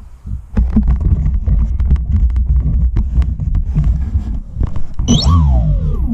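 Rumbling, knocking handling noise on the camera's microphone as the camera is moved and covered. About five seconds in, a whine falls quickly in pitch.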